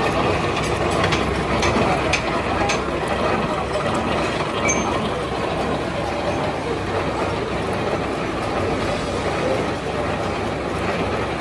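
Gear-cutting machine running steadily as its cutter works through a stack of steel sprocket blanks under coolant. There are a few sharp metallic clicks in the first three seconds.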